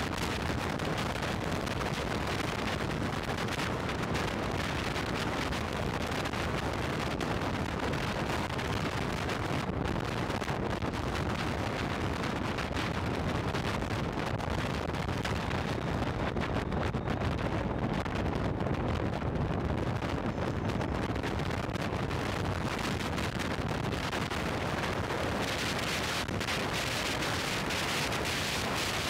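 Steady wind rush on a motorcycle-mounted action camera's microphone while riding at highway speed. It turns brighter and hissier near the end.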